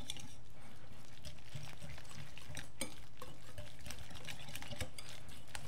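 Wire whisk beating a thick batter of egg and shredded mozzarella in a glass bowl, its wires scraping and clicking against the glass in quick, repeated small strokes.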